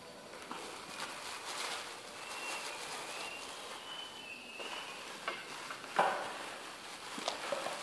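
Rustling and light clicks from gloved hands handling hair-dye bottles and a mixing container, with a sharper knock about six seconds in.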